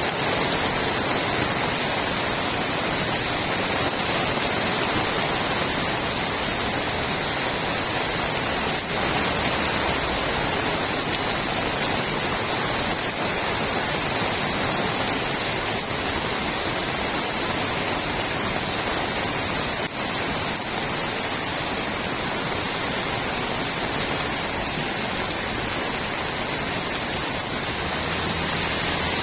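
Steady rain falling on a street, with runoff water gurgling; an even, unbroken hiss.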